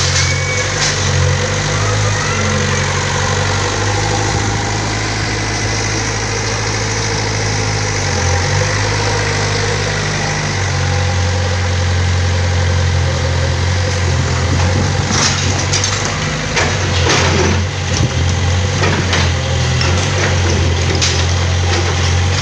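Kobelco SK50UR mini excavator's diesel engine running steadily under load while its bucket pushes down brick walls. In the second half there are repeated sharp knocks and crashes of bricks and masonry falling onto rubble.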